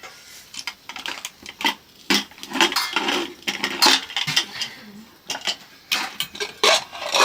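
Dishes and eating utensils clinking and clattering, with many short knocks scattered throughout.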